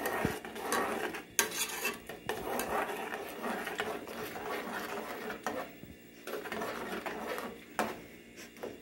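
A metal spoon stirring and scraping around the inside of an aluminium saucepan, dissolving gelatin powder in hot water, with a few sharp clinks against the pot.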